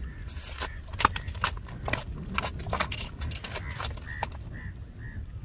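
A freshly caught rohu flapping and slapping on a rocky bank: a run of sharp, irregular knocks and taps against stones, over wind rumbling on the microphone. The knocks stop about four seconds in, and a row of short high peeps, about two a second, follows.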